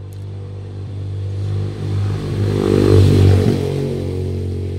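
An engine running steadily, growing louder to a peak about three seconds in, then easing back.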